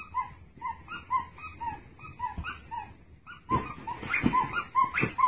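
Husky puppy giving short, high-pitched yips and whimpers, about three a second. A little after three seconds in they pause briefly, then come back louder over the rustle of a duvet being tugged.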